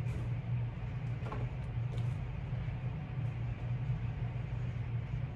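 A steady low hum, with a few faint clicks and rustles near the start, a little over a second in and about two seconds in.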